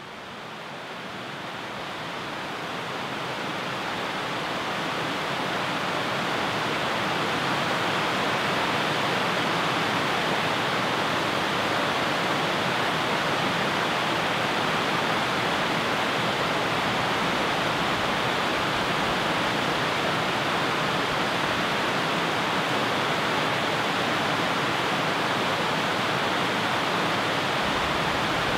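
Steady rushing of river rapids and a small waterfall, fading up over the first several seconds and then holding even.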